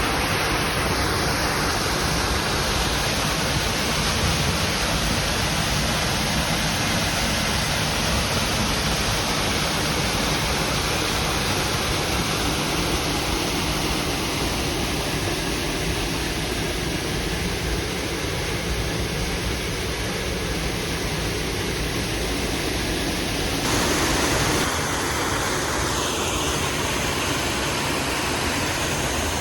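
Waterfall close by: a steady, even rush of falling water, changing slightly in tone about three-quarters of the way through.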